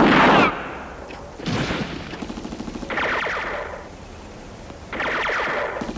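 Four bursts of automatic gunfire, each lasting about half a second to a second; one burst has a rapid rattle of single shots. The bullets strike the pavement around a ball lying in the road.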